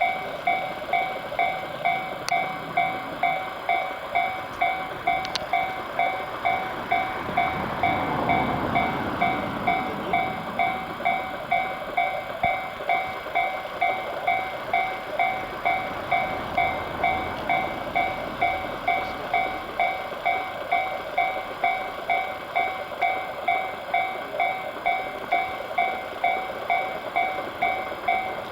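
Japanese railway level-crossing warning bell ringing steadily, about two dings a second. About eight seconds in, the rumble of a passing train swells and then fades back under the bell.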